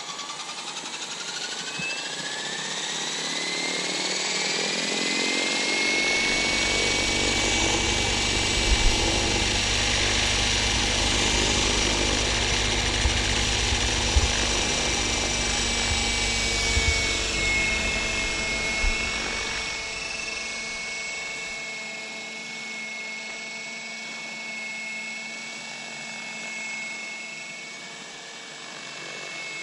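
Align T-Rex 700L Dominator electric RC helicopter spooling up: a whine that rises in pitch over the first six seconds or so, then holds as a steady high whine of motor, gears and rotor. A low rumble sits underneath from about six seconds in until about twenty seconds in, after which the sound grows quieter.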